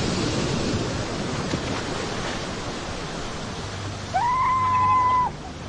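Surf washing over rocks. About four seconds in, a single seal call rises briefly, then holds one steady tone for about a second.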